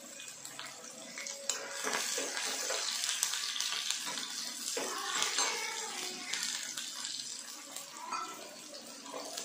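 Sliced onions and cumin sizzling in hot oil in a frying pan, with a slotted spatula stirring them against the pan. The sizzling grows louder about a second and a half in.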